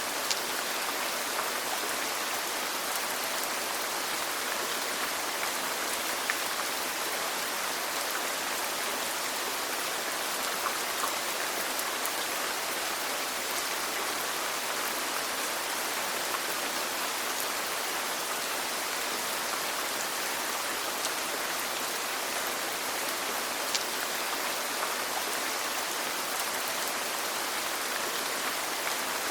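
Steady rain falling: an even, unbroken hiss with scattered single drops ticking through it.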